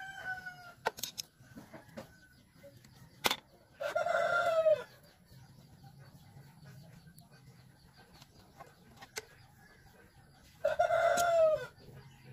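A rooster crowing twice, each crow about a second long and the loudest sounds here, one about four seconds in and one near the end. A few sharp clicks fall between them.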